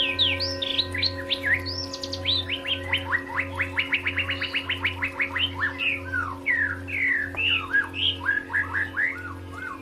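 White-rumped shama singing a fast, varied song of whistled sweeps, with a rapid run of short rising notes in the middle. Under the song runs soft background music of held tones and a low pulse.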